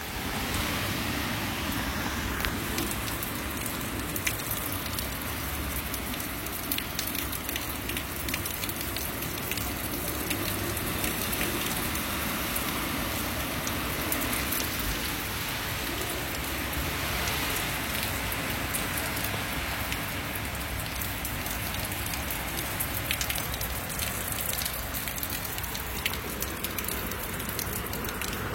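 Heavy storm rain pouring down and drumming on surfaces, a dense steady hiss full of fine drop impacts.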